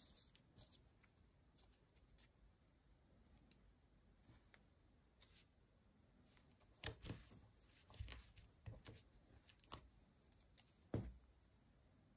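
Faint handling of stiff die-cut paper pieces: soft taps, rustles and small knocks as the pieces are pressed together and set down, a few in quick succession past the middle and one sharper tap near the end.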